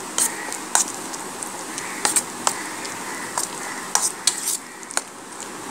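A spoon stirring and scraping a thick, wet spice paste in a steel bowl, with sharp irregular clinks of metal on metal.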